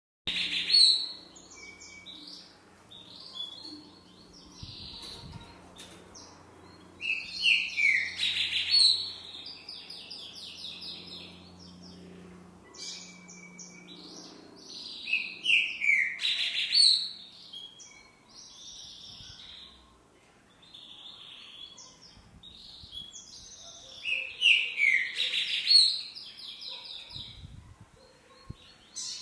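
Green-winged saltator (trinca-ferro) singing what its keeper calls an unusual song variant: four loud phrases spaced roughly every eight seconds, with softer notes between them.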